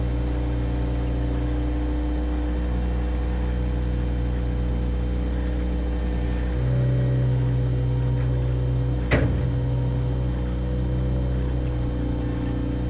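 Bobcat 642 skid-steer loader's engine running steadily as it works the pile. Its note changes about six and a half seconds in, and there is a single sharp clank about nine seconds in.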